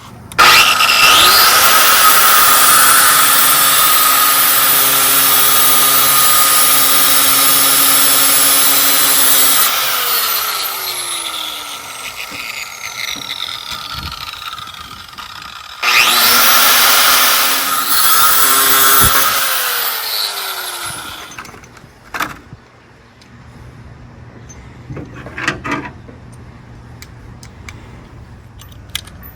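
A power tool motor spins up, runs under load with a harsh grinding or cutting noise for about ten seconds, and winds down with a falling whine; it runs again for about five seconds, then a few light clicks and rattles of metal follow.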